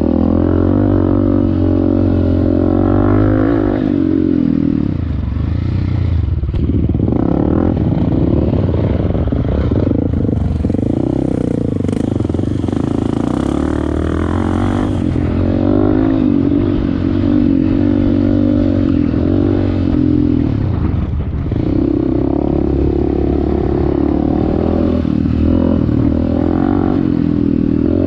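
Off-road motorcycle engine running under load while riding, its revs rising and falling repeatedly with gear and throttle changes.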